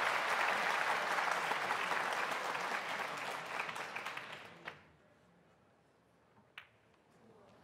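Audience applause fades out over the first four and a half seconds. Then comes a single click of a snooker cue striking the cue ball, and about two seconds later a sharp click of the cue ball hitting a red.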